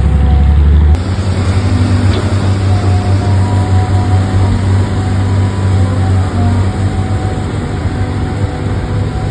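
Steady low diesel-type engine drone of an RC heavy truck, with faint steady tones above it; the sound shifts abruptly about a second in.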